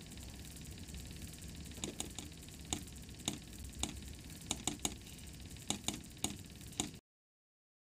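Morse telegraph key clicking as an operator taps out the SOS distress call: about a dozen sharp clicks in irregular groups over a low hum, cutting off suddenly near the end.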